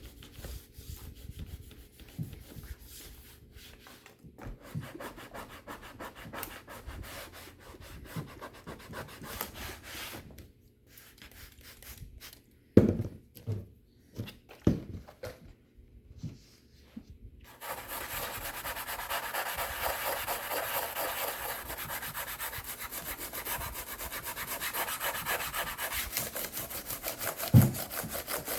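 Scrubbing and rubbing on a laptop's surfaces while cleaning off grime. It starts as irregular light strokes, with a few knocks around the middle. For the last ten seconds it becomes steady, fast scrubbing, with a single loud knock near the end.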